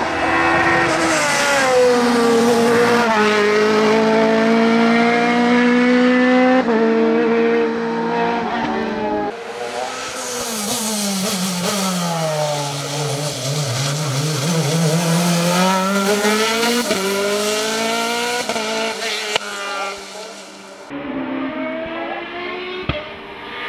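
Open-cockpit sports prototype race car at full throttle on a hill climb. The engine note climbs and drops back at each quick upshift, then sinks low and winds up through the gears again as the car passes close. It fades as the car pulls away near the end.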